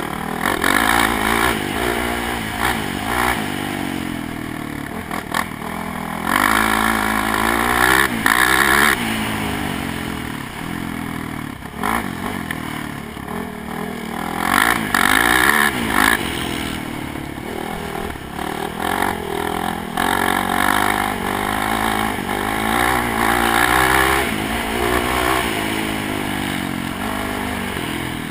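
ATV engine heard up close, revving up and easing off again and again, its pitch rising and falling as the rider accelerates along the course, with rattling from the machine over rough ground.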